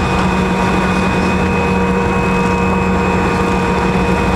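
Cabin noise inside an Embraer 175 airliner rolling on the ground after landing: its GE CF34-8E turbofan engines run with a steady whine and hum, several steady tones over a constant rushing noise.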